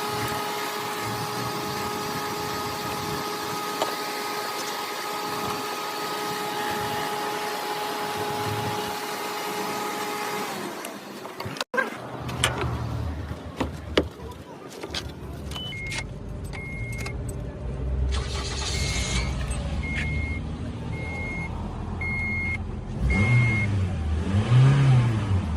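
A car with a steady hum for the first part. Then the car's engine runs with a short high warning beep repeating about twice a second, and the engine revs up and back down near the end.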